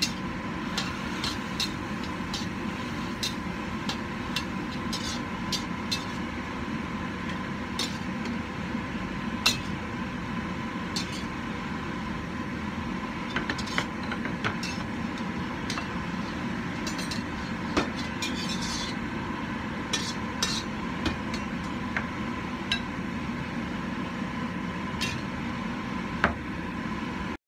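Perforated metal spatula scraping, tossing and clinking against a wok during stir-frying, with frequent irregular sharp clinks. A steady rushing background noise runs under it, and the sound cuts off abruptly at the end.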